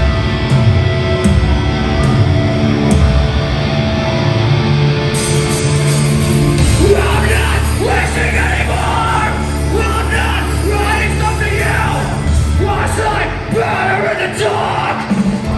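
Loud live heavy music: a band playing distorted, sustained low chords, with a screamed vocal coming in about seven seconds in.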